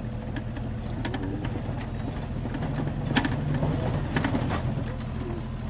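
Land Rover engine running steadily at a low hum, with a few sharp clicks about three and four seconds in.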